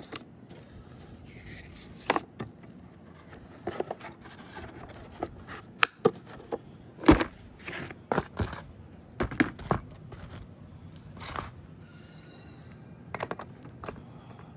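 Metal hand tools and hex bits clinking, tapping and scraping as they are handled, in irregular sharp clicks, a few of them ringing briefly.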